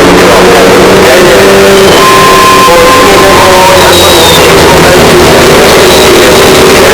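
Mazda 787B's four-rotor R26B rotary engine running at high revs, overdriven to full scale and distorted. Its pitch holds mostly steady with small shifts.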